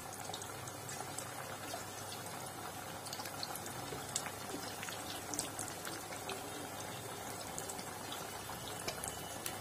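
Batter-coated chicken pakoras deep-frying in hot oil: a steady sizzle and bubbling with many small crackles and pops.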